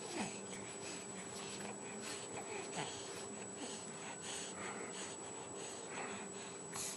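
A young baby's noisy, snuffly breathing in short puffs, with a couple of brief vocal sounds that drop in pitch, one near the start and one about three seconds in.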